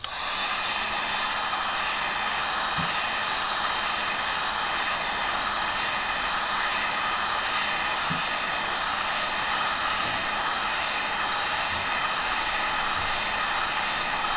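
Wagner HT-1000 heat gun switched on and blowing steadily over the exposed GPU and north bridge chips, heating them to reflow their solder.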